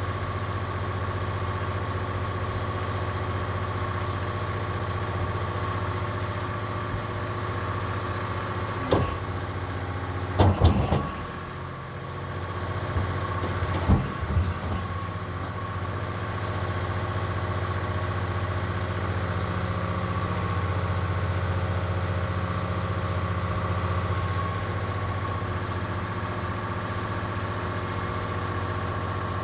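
Excavator's diesel engine running steadily, with a constant high hum over it, as the machine is walked off a lowbed trailer. Sharp knocks come about nine seconds in, a burst of several around ten to eleven seconds, and one more near fourteen seconds.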